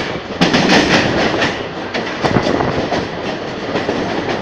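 Mumbai suburban electric train running at speed, heard from its open doorway: a steady rush with wheels clattering over the rail joints, louder from about half a second in.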